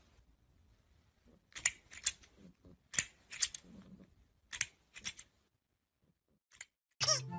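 Plastic toy crocodile clacking, its jaw and joints snapping in four quick groups of two or three sharp clicks, about a second and a half apart. Music starts abruptly just before the end.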